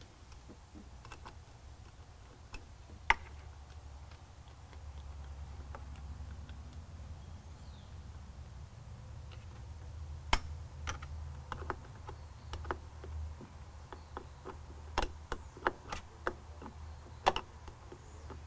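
Irregular sharp metallic clicks and taps of a wrench and a wire ring terminal working at a truck battery's terminal bolt, over a low steady hum.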